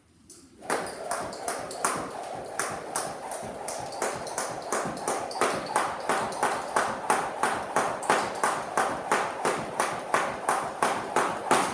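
Jump rope skipping: the rope strikes the mat with each turn, together with light landings, in a steady rhythm of about three strikes a second. It starts just under a second in.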